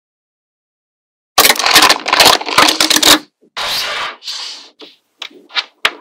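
Small magnetic balls clicking and rattling against each other as they are handled. A dense clatter starts about a second and a half in, softer rustling follows, and a few single sharp clicks come near the end as balls snap together.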